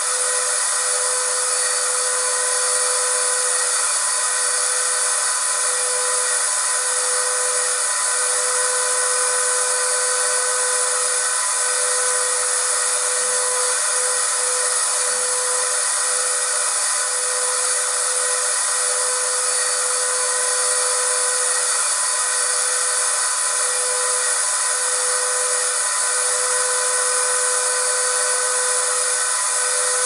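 Vacuum cleaner running continuously at constant speed: a steady rushing hiss of air with a steady motor whine over it, thin in the low end and without change.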